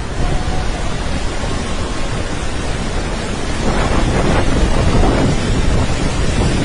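Loud, steady roar of the water pouring over Iguazu Falls, with wind buffeting the microphone; it swells louder about halfway through.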